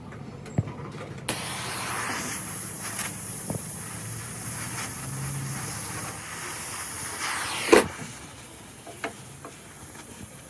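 Compressed air hissing steadily from an air tool, such as a spray gun or blow gun, starting abruptly about a second in and cutting off about six seconds later with a sharp click; a few light knocks around it.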